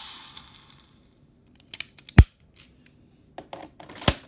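Plastic clicks from a Kamen Rider Saber toy: the Brave Dragon Wonder Ride Book is snapped shut and then pushed into the Seiken Swordriver belt. A few light clicks lead to a sharp click about two seconds in, and again to a second sharp click near the end, after the toy's electronic sound fades out in the first second.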